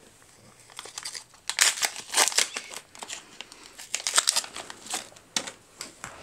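Foil wrapper of an AFL Teamcoach 2024 trading-card pack crinkling and tearing as it is ripped open by hand, a run of loud crackly bursts lasting about three seconds, followed by a few light ticks as the cards are handled.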